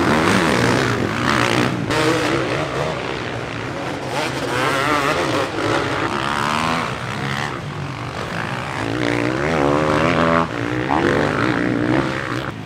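Motocross bikes racing, including a Kawasaki KX450F four-stroke, with engines revving up and down over and over as the riders accelerate, shift and back off through the corners.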